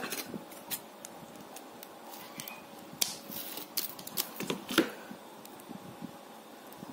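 Scattered small clicks and light rustling as a strip of rhinestone mesh (manta de strass) is handled and trimmed, with small clusters of clicks about three and four and a half seconds in.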